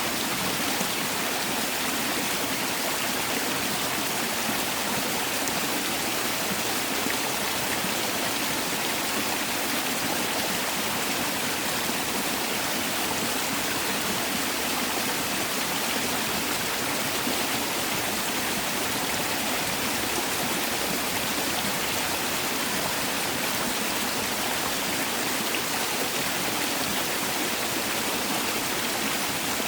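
Mountain valley stream rushing steadily over rocks, a continuous even hiss of flowing water with no pauses or changes.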